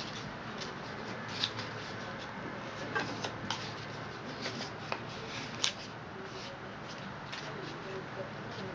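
A sheet of origami paper rustling and crinkling as it is creased and folded by hand, with short crisp crackles scattered irregularly over a steady low background hum.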